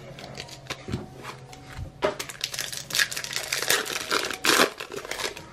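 A trading-card pack wrapper crinkling and tearing as it is ripped open and pulled apart. The dense crackling starts about two seconds in and is loudest in the second half.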